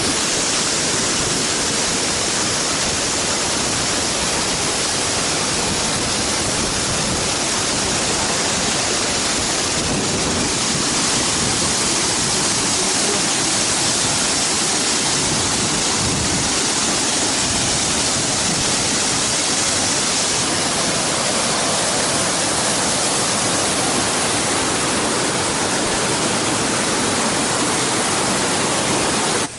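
Waterfall: a steady, loud rush of falling water, with no engine or voice over it.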